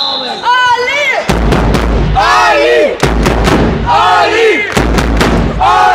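Wrestling crowd in a sports hall shouting and cheering in loud rising-and-falling calls, over repeated sharp bangs and heavy low thumps.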